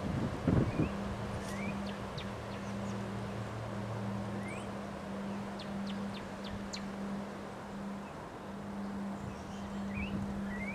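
Wind blowing steadily with a brief gust about half a second in, over a constant low hum. Small birds give short rising chirps several times.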